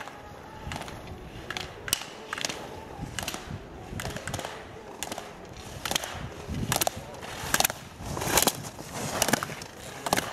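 Slalom skier's skis scraping and chattering over hard-packed snow turn after turn, with sharp clacks as the racer knocks the slalom gate poles aside. The turns come at a steady rhythm, under a second apart, and grow louder as the skier nears, loudest about eight seconds in.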